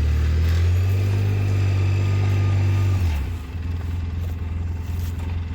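ATV engine running steadily, then slowing to a quieter idle a little after three seconds in.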